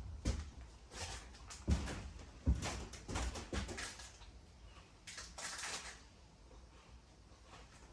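Scattered light knocks and thuds from handling panels and debris inside a caravan's gutted interior, with a couple of brief scraping rustles about five seconds in.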